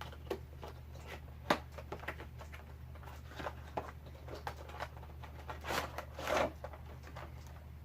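Action-figure packaging being handled: the plastic tray and cardboard box give scattered clicks and crinkles, with a longer crinkle about six seconds in, over a steady low hum.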